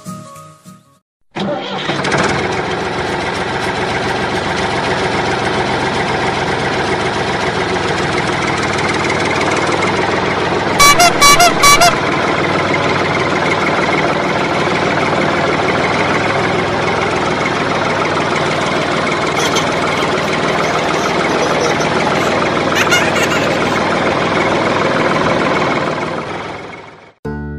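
Tractor engine running steadily. It starts abruptly about a second and a half in and cuts off just before the end, with a quick series of horn toots a little before halfway.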